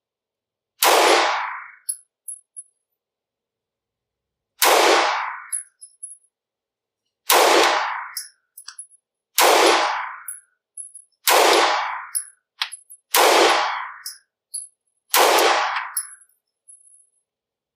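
Taurus TH9C 9mm compact pistol firing seven slow, deliberate shots, roughly one every two seconds, each crack followed by about a second of echo, with faint small clinks between shots.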